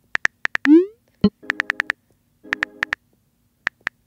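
Texting-story chat animation sound effects: several short runs of rapid keyboard typing clicks, with a rising pop as a message is sent under a second in.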